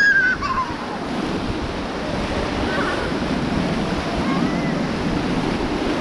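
Whitewater river rapids rushing around an inflatable raft: a steady, loud noise of churning water. A person's short high shout rises and falls right at the start.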